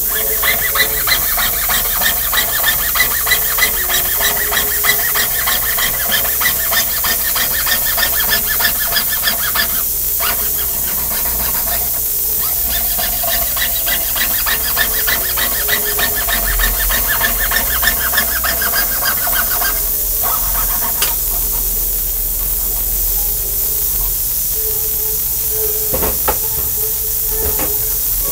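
Jeweler's saw cutting a pendant from thin metal sheet, the blade rasping and squeaking on each quick back-and-forth stroke. The sawing stops about 20 seconds in, leaving a steady hiss and a couple of light clicks near the end.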